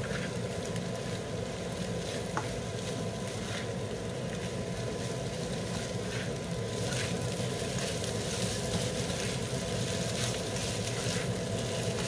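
Fried rice with egg and canned mackerel sizzling in a nonstick wok on high heat while a spatula stirs and scrapes through it, over a steady low hum.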